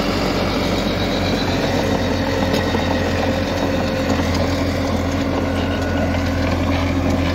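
Farmtrac 6055 tractor's 60 hp four-cylinder diesel engine running steadily under load in second low gear, driving a rotavator that churns through the soil.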